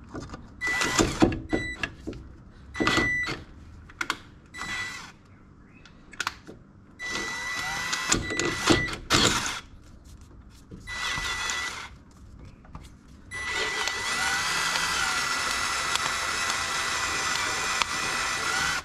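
Cordless drill boring into a Mazda MX-5's oil pan, a steady motor whine with the bit cutting metal. It runs in several short bursts of a second or two, then one long continuous run from about two-thirds of the way in until it stops at the end, as the bit works through the pan wall.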